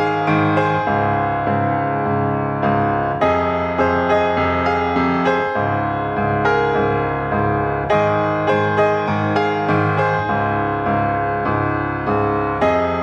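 Background piano music: a steady run of struck notes, each ringing and fading.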